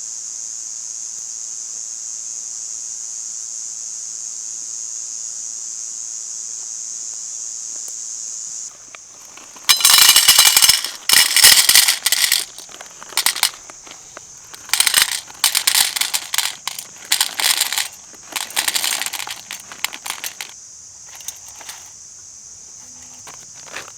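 A steady high-pitched drone of insects. It drops sharply in level about nine seconds in. Then comes a run of loud, irregular rustling and crackling handling noises lasting about ten seconds, with the insect drone continuing faintly beneath.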